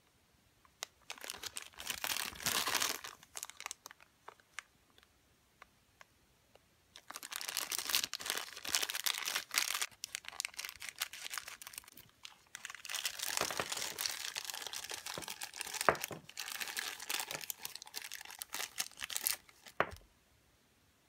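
Clear plastic packaging bag crinkling as it is handled and cut open with scissors, in several stretches of rustling with a few sharp clicks among them.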